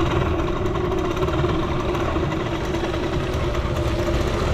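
Suzuki FZ50 moped's small single-cylinder two-stroke engine running steadily, heard close up from the handlebars, with a steady hum over a rumbling noise.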